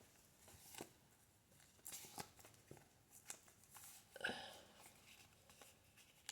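Near silence with a few faint handling noises: light rustles and taps, the loudest a short rustle about four seconds in.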